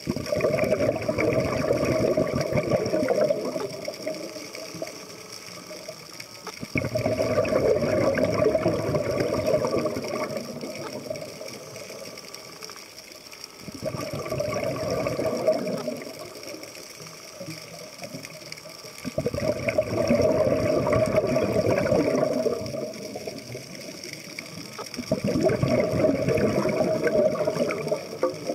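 A scuba diver's exhaled breath bubbling out of the regulator underwater: five long bursts of bubbles, each about three seconds, coming about every six seconds in a steady breathing rhythm.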